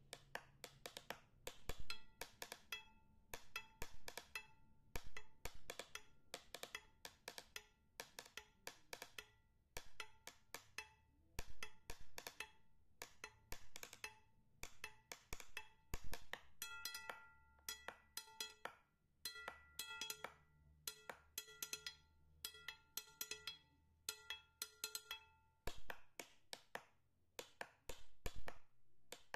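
Background music: a percussive track of quick, evenly paced knocks. Pitched notes join in about halfway through and drop out a few seconds before the end.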